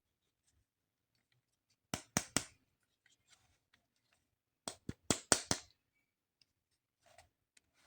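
Crisp clicks and snaps of plastic toy packaging being handled: three quick ones about two seconds in, then five more about five seconds in, with faint rustling between.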